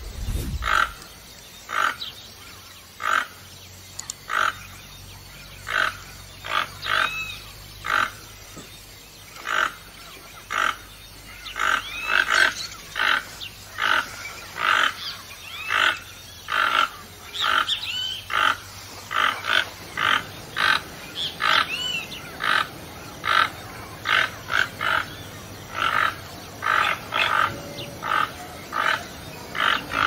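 Female toucan calling: short calls repeated about one and a half times a second, some with a quick rise and fall in pitch.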